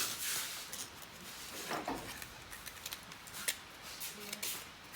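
Irregular scratchy rubbing strokes of hand sanding on a small workpiece, with a couple of louder strokes, one at the start and one about two seconds in, and a few light ticks.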